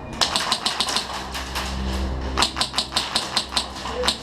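Airsoft gun shots: a quick string of sharp clacks, a pause, then another string about two and a half seconds in and one more near the end.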